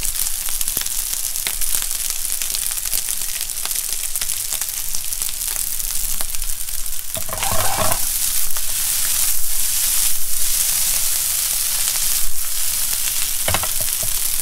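Fried rice sizzling in a nonstick frying pan on a gas burner: a steady hiss with fine crackling pops, and a brief louder stir about halfway through.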